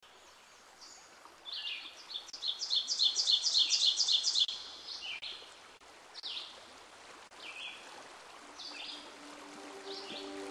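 Songbirds chirping over a steady, water-like hiss: a fast run of repeated bright chirps about two seconds in, then scattered single, falling calls. Soft music with held notes comes in near the end.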